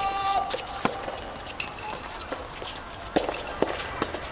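Soft tennis rally: the rubber ball is struck by rackets several times, each hit a sharp pop, with a shout held over the first half-second.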